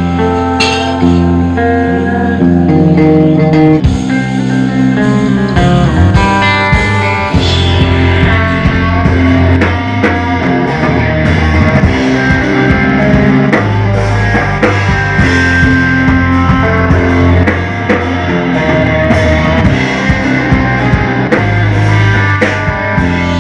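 Three-piece post-rock band playing live, with electric guitar and bass over a drum kit. Held guitar notes open the passage, and the drums come in about four seconds in and keep a dense beat under the guitars.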